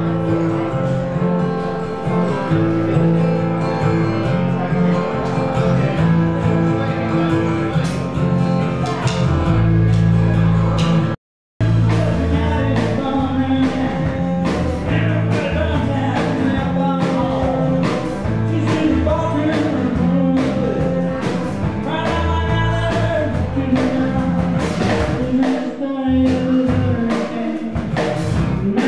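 Folk band playing live: strummed acoustic guitar, violin, bass and drums, with a man singing. The sound drops out completely for about half a second around eleven seconds in.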